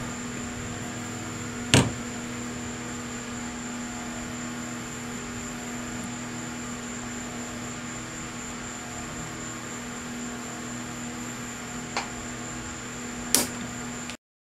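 A steady workshop hum with three sharp clicks, as of metal tools or parts being knocked or set down: a loud one about two seconds in, a faint one near the end and another loud one just after it. The sound then cuts off abruptly.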